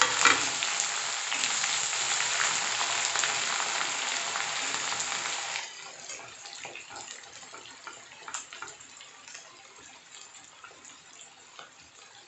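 Chopped onions sizzling loudly in hot oil in an iron kadai. The sizzle drops suddenly a little under halfway through to a quieter crackle, with a few light clicks from the spatula in the pan.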